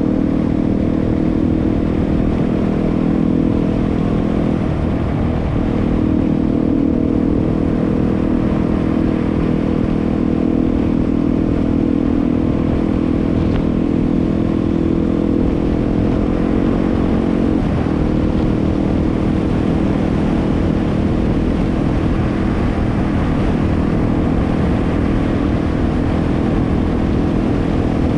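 Yamaha WR250R's single-cylinder four-stroke engine running steadily under way, its note dipping briefly twice, about five seconds in and again near eighteen seconds.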